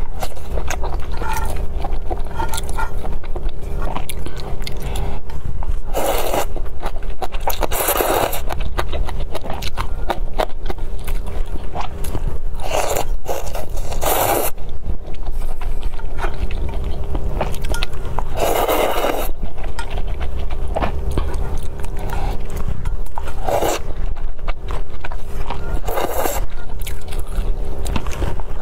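Noodles slurped from a bowl of soup, with chewing and small mouth clicks between the slurps; about seven loud slurps spread through the stretch. A steady low hum lies underneath.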